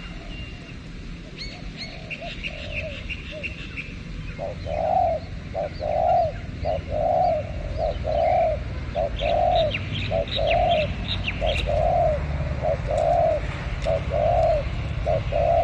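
Spotted dove cooing in a long, even series of rounded coos, starting a few seconds in, with small birds chirping in quick bursts in the background.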